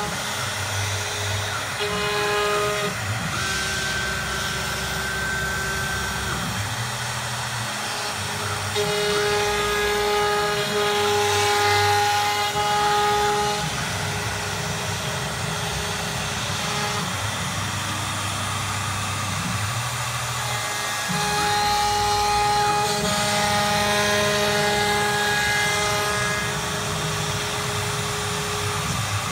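Three-spindle CNC router routing grooves into a door panel: steady spindle whine and cutting noise, with motor tones that switch on, off and change pitch every second or two as the head moves along the pattern.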